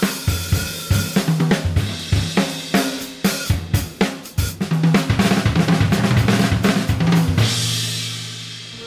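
Upbeat instrumental theme music driven by a drum kit, with snare, hi-hat, bass drum and a bass line. About a second and a half before the end it settles on a held chord and cymbal wash that fades away.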